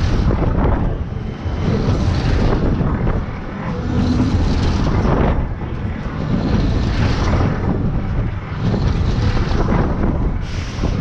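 Wind rushing over the microphone and the rumble of a fast-spinning scrambler (grass cutter) fairground ride, swelling and easing about every two seconds as the cars whip round.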